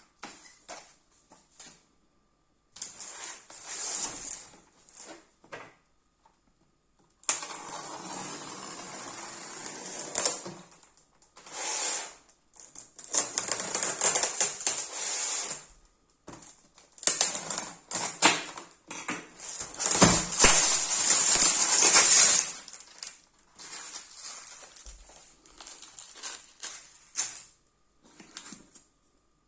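Packaging and an airsoft shotgun being handled during unboxing: bursts of rustling and crinkling with scattered clicks and knocks, stopping and starting, loudest a little past two-thirds of the way through.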